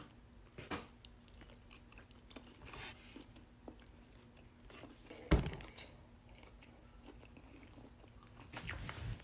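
A person chewing a mouthful of steamed dumpling, with soft wet mouth clicks. A single loud thump comes about five seconds in.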